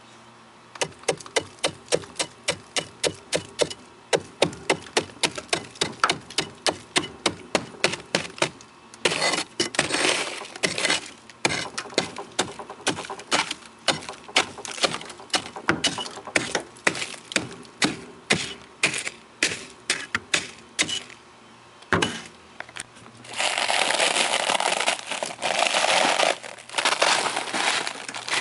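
A chisel chipping into packed frost and ice in a chest freezer: rapid, even stabbing strikes, about three a second, that break off into a few seconds of continuous crunching and scraping of frost near the end.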